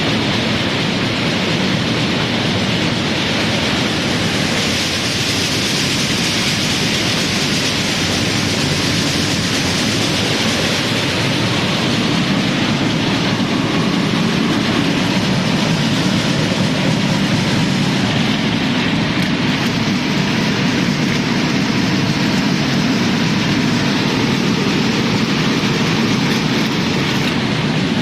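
Nut grading and screening machine running, nuts being shaken across its sieves to sort them by size, giving a loud, steady, dense rushing noise.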